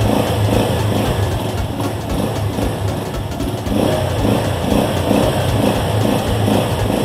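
Keeway Cafe Racer 152's single-cylinder engine running, held on the throttle after six months unused: it stalls when the throttle is released. Background music plays over it.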